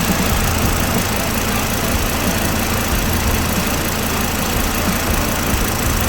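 Volvo B5254T2 turbocharged five-cylinder engine idling steadily, running again after a top-end overhaul that followed a snapped timing belt.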